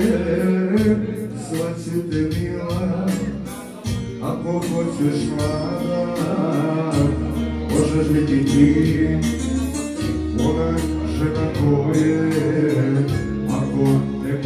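Live band music with a steady drum beat, a deep bass line and melody instruments over it.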